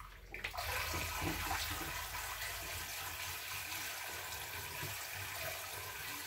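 Water running steadily into a kitchen sink, starting about half a second in.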